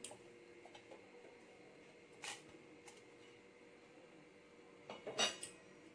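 Faint handling sounds of chillies being dropped into a stainless-steel mixer-grinder jar: a short light tap about two seconds in and a brief clatter near the end, over a faint steady hum.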